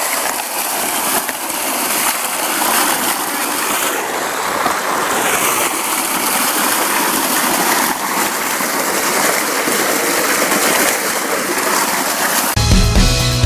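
A steady stream of water gushing down onto rocks and splashing, with music coming in about a second before the end.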